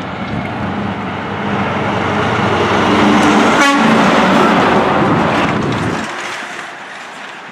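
International semi truck with a box trailer passing close by: diesel engine and tyre noise build, peak as the trailer goes by, then fade as it pulls away. The low rumble drops away suddenly about six seconds in.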